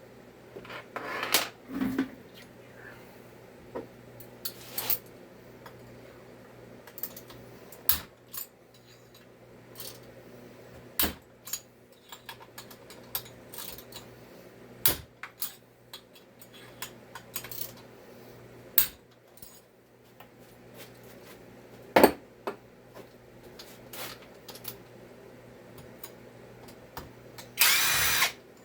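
Scattered clicks and light knocks of tools and small metal parts being handled at a workbench, then a brief, loud burst of a power tool running for about a second near the end.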